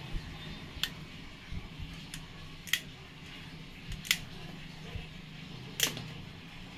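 Four sharp, light clicks about a second and a half apart, like kitchen ware being handled, over a faint steady low hum.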